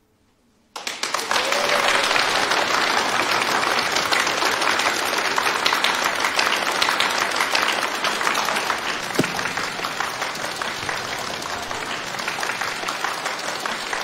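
A large audience applauding, breaking out suddenly just under a second in and carrying on steadily, easing slightly toward the end.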